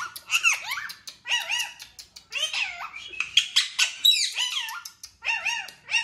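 Rose-ringed (Indian ringneck) parakeet chattering in a run of quick, high-pitched calls, with a few short pauses between them.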